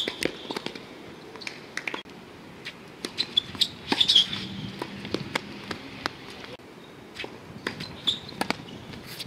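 Tennis rally on an outdoor hard court: sharp pops of rackets striking the ball and the ball bouncing, with the players' footsteps and shoe squeaks between the hits.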